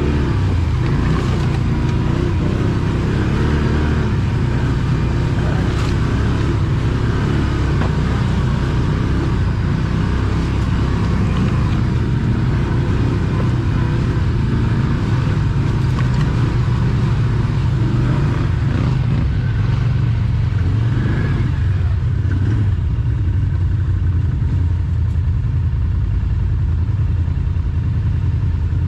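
ATV engine running steadily, its low drone holding at a fairly even level throughout.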